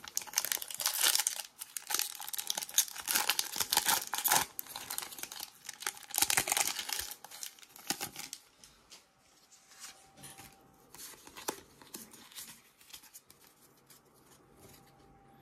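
Foil wrapper of a Pokémon TCG booster pack being torn open and crinkled in the hands, a dense crackling for about eight seconds, then only faint scattered ticks and rustles.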